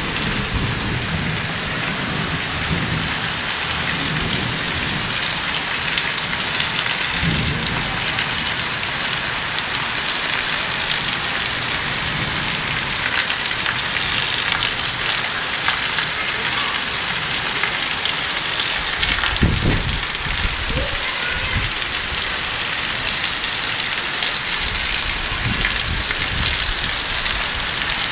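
Heavy rain pouring steadily onto concrete floors, lanes and rooftops. A few brief low rumbles come about two-thirds of the way through.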